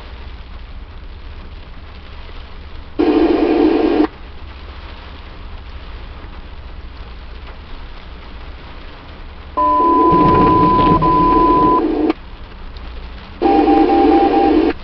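Scanner radio picking up three short keyed transmissions of static with no voice. The second carries a steady tone about two seconds long, and the third a short run of beeps. Fainter hiss fills the gaps.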